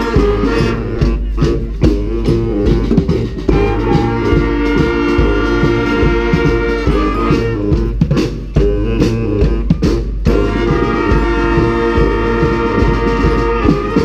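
Street brass band of sousaphones, trombones, saxophones and trumpets with percussion playing a loud, driving rock-style tune, ending on its last notes right at the end.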